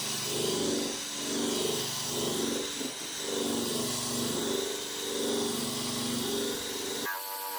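Electric polisher buffing toothpaste into a plastic headlight lens. Its motor sound swells and dips about once a second as the pad is worked across the lens, then cuts off abruptly near the end.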